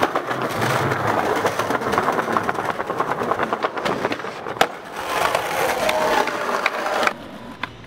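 Skateboard wheels rolling over rough concrete with small clicks and rattles, and one sharp clack of the board a little past halfway as the skater rides onto a rock. The rolling noise cuts off suddenly near the end.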